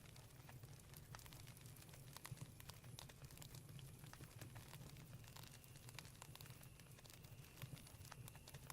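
Campfire crackling faintly, with scattered sharp pops and snaps at irregular intervals. A faint steady high tone joins about halfway through.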